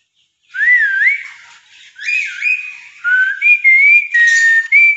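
Clear whistled phrases: a wavy note that rises and falls, then a run of short sliding notes with brief gaps, ending on a longer held note.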